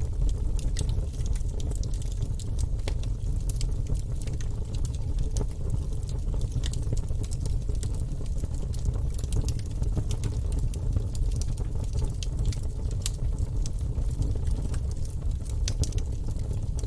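Wood fire burning in a fireplace: a steady low rumble of flames with frequent irregular crackles and pops from the logs.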